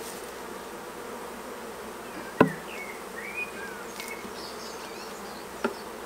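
Honeybees buzzing steadily around a hive as a shaken-out swarm moves in. A sharp knock comes about two and a half seconds in, and a lighter one near the end.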